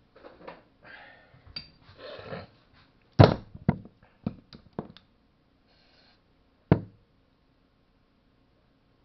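Tools and engine parts handled on a workbench during a chainsaw engine rebuild: rustling and scraping, then a quick string of sharp knocks and clicks, the loudest about three seconds in, and one last knock near seven seconds.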